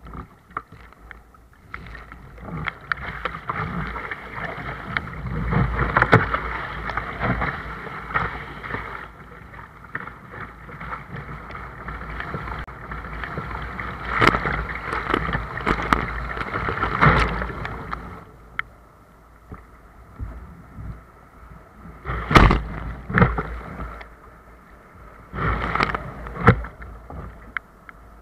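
Seawater rushing and splashing around a sea kayak paddled through breaking surf, with paddle strokes in the water. Breaking waves give a long stretch of loud rushing through the first half, and there are several sharp, loud splashes near the end.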